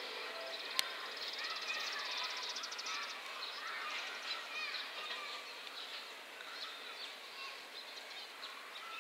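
Small birds chirping and twittering over a steady outdoor background, with a fast high trill early on and a single sharp click about a second in.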